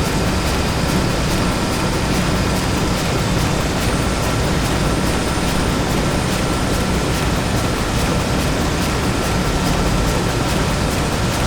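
Steady factory machinery ambience: a loud, unbroken mechanical din with a thin steady whine and faint, regular ticking.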